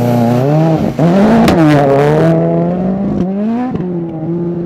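Ford Fiesta RS WRC rally car's turbocharged 1.6-litre four-cylinder engine working through a corner: the revs drop sharply as the driver lifts off about a second in, then rise and fall again as it accelerates away, with a short break in the note just after three seconds as it changes gear. A single sharp crack sounds around a second and a half in.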